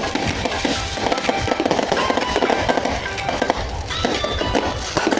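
Aerial fireworks bursting and crackling in rapid, overlapping pops, over music playing.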